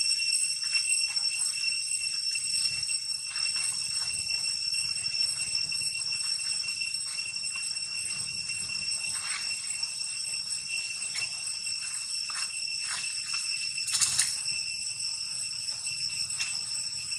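A steady, high-pitched insect drone, typical of a cicada chorus, runs without a break. Faint short rustles sit over it, and there is a louder brief noise about fourteen seconds in.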